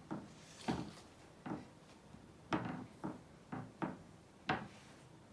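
Plastic spatula knocking and scraping against a glass bowl as a thick slime mixture of glue, detergent and flour is stirred, in irregular short knocks about once or twice a second.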